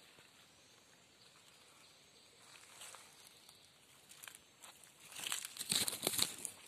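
Rustling and crunching of someone walking through dry leaf litter and brushing past undergrowth, starting faintly a couple of seconds in and growing louder and denser near the end.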